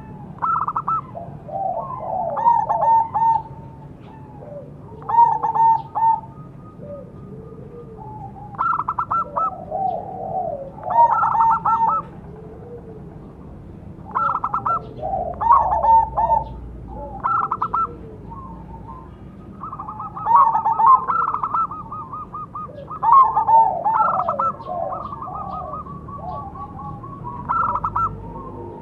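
Zebra doves (perkutut) cooing, led by a crossbred Bangkok-type perkutut. Its rhythmic, staccato call phrases come every few seconds and sometimes overlap with other doves' calls at a lower pitch.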